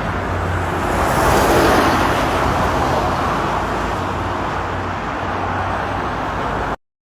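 Car road noise: steady tyre and wind noise over a low engine hum, swelling slightly about a second in, then cutting off abruptly near the end.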